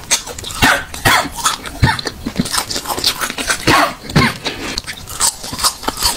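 A woman's short coughs and throat-clearing, close to the microphone, in an irregular series; she is eating an extremely spicy gluten stick, and the coughs come from its heat.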